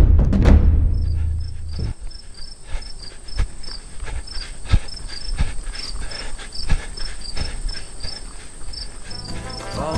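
Sound-design interlude: a deep hit with a low rumble that fades after about two seconds. Then a fast, even run of high chirps like insects over a steady high tone, with a dull knock about every two-thirds of a second.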